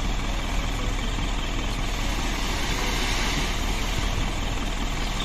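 Steady truck engine idling sound: an even low rumble with hiss and no change in pitch.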